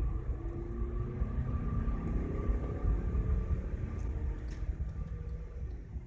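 Tuned four-cylinder 2.0 TDI diesel of a VW Passat CC with its DPF removed and a straight-pipe exhaust, accelerating hard, heard from inside the cabin. The engine note rises in pitch as the revs climb.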